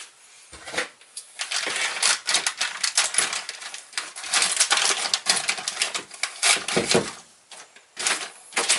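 Bike rack parts and packaging being handled and moved aside: a long run of rapid clicking and rattling, a pause, then another short clatter near the end.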